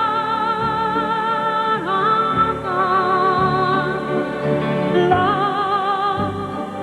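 Christmas music with a singing voice holding long notes with vibrato, changing notes every second or two, over accompaniment.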